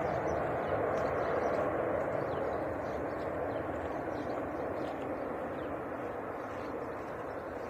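Jet airliner engine noise, a steady roar that slowly fades as the aircraft moves away.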